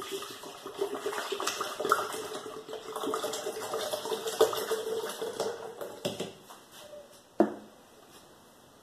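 Passion fruit juice concentrate pouring from a bottle into a blender jar for about six and a half seconds. One sharp knock comes near the end.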